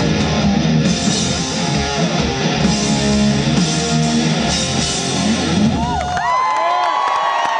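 A rock band plays live at full volume, with electric guitars, bass and drums. About six seconds in, the band stops and the crowd cheers, with high sliding whoops and whistles.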